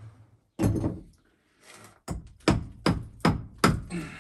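Hammer blows on a heavy lump of old brickwork that is being broken up: one dull thud about half a second in, then five sharp strikes in quick succession, about two and a half a second.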